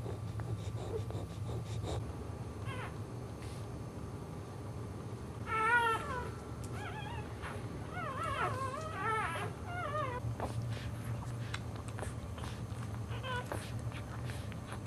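Newborn Boxer puppies squeaking and whimpering while nursing: short, high, wavering squeals, the loudest about six seconds in, a run of them from about eight to ten seconds and one more near the end, over a steady low hum.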